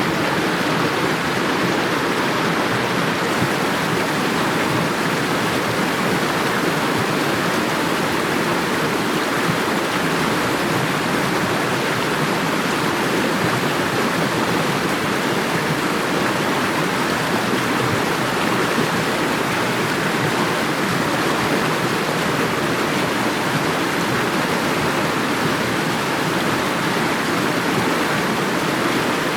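Rushing water, a steady full splashing flow with no breaks or changes.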